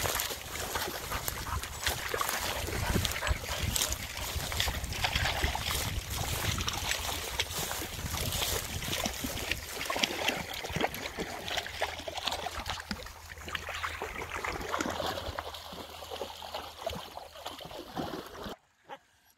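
Dogs splashing and wading through shallow water: a steady run of splashes and sloshes, with wind rumbling on the microphone. It cuts off suddenly near the end.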